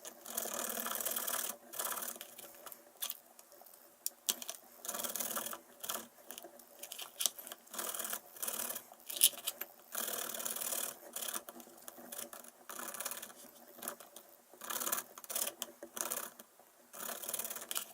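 Garlic cloves being grated on a hand grater: irregular rasping strokes in short runs with brief pauses between.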